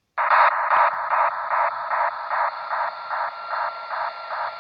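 Static-like hiss pulsing about three times a second, starting suddenly, with a steady high tone joining about halfway: the opening sound effect of an animated horror story played back on a phone.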